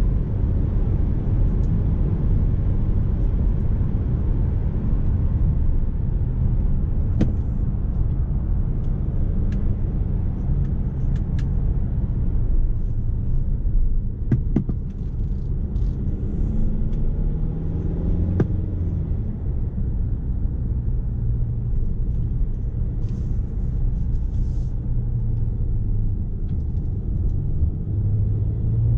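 Mercedes GLC 250 d's four-cylinder turbodiesel and tyre rumble heard from inside the cabin while driving: a steady low rumble, with the engine note climbing in pitch for a few seconds around the middle. A few faint clicks come through now and then.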